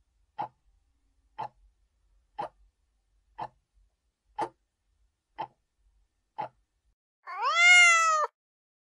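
Quiz countdown-timer ticks, seven sharp ticks about once a second, then a cat's meow lasting about a second near the end. The meow rises in pitch and holds before stopping abruptly, marking the reveal of the correct answer.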